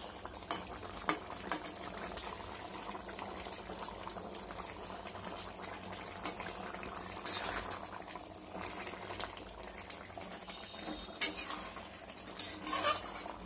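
Curry simmering in a metal kadai while a metal spatula stirs it, scraping and tapping against the pan now and then, with one sharper knock near the end.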